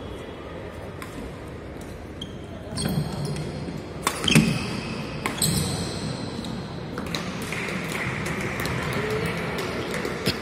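Badminton rally: rackets striking a shuttlecock in sharp, irregular clicks, the loudest hits about four seconds in, echoing in a large hall.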